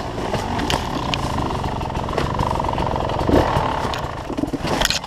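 Enduro dirt bike engine running steadily on a rocky descent, with sharp knocks and clatter as the bike hits rocks and goes down on its side, the loudest knock near the end.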